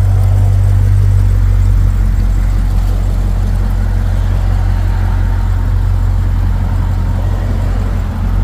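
Dodge Hellcat's supercharged 6.2-litre V8 running steadily, a deep even hum with little change in pitch.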